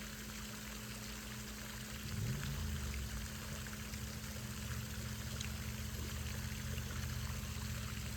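Steady hiss of running, trickling water with faint drips, over a low steady hum; a low rumble joins about two seconds in.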